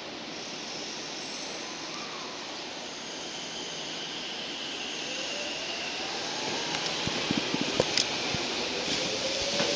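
Tokyo Metro 05 series electric commuter train pulling away from a station: its motor whine rises in pitch as it gathers speed, and from about seven seconds in the wheels click sharply over the rails as the cars roll past.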